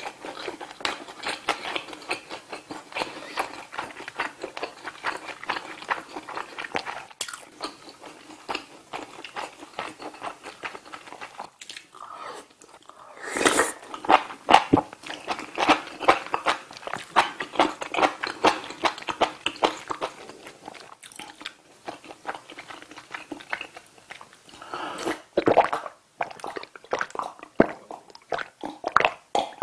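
Close-miked chewing and wet mouth sounds of a person eating rice, grilled saury and spicy soft tofu stew, with a louder, noisier spoonful of stew taken about 13 seconds in and drinking from a glass near the end.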